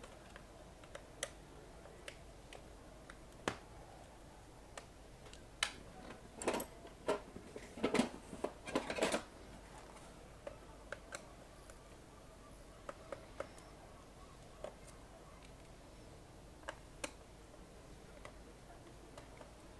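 Small clicks and taps of a screwdriver working screws out of the underside of a ThinkPad T500 laptop, scattered and irregular, with a brief spell of louder clattering knocks from about six to nine seconds in.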